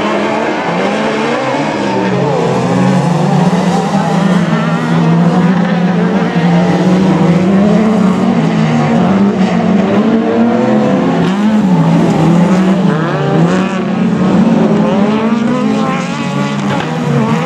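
Several autocross buggies racing on a dirt track, their engines revving up and down through the gears. The overlapping engine notes rise and fall continuously.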